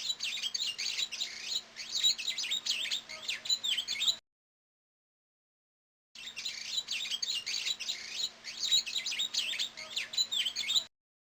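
Songbird chirping and twittering in a dense, rapid run of high notes for about four seconds. After a two-second silence the same recording plays again, with a faint steady hum underneath.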